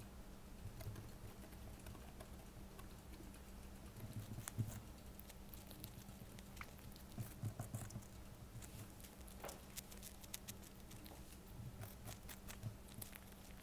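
Hamster gnawing and nibbling a cucumber slice right at a small microphone: quick, irregular crunchy clicks and soft thumps, with its paws pattering on the table at first. A steady low hum runs underneath.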